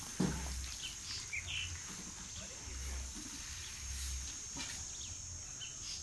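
Outdoor rural ambience: a steady high insect drone, with a few short bird chirps about a second in and again near the end. A short low sound just after the start is the loudest moment.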